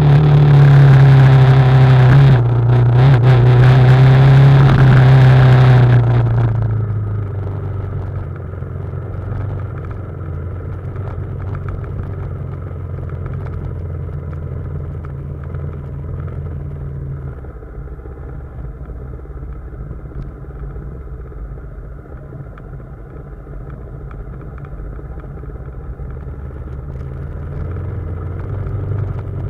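BMW G310GS single-cylinder motorcycle engine under throttle with wind rush for about six seconds, then backing off to a low, quieter run as the bike rolls downhill on a closed throttle.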